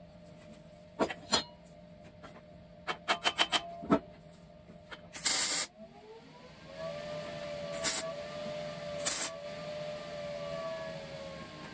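Sheet-metal drill-bit tray on an old hinge being swung in and out under a steel welding table: scattered metal clicks and knocks, then a loud half-second burst of noise about five seconds in. After that a long wavering tone slowly rises and falls.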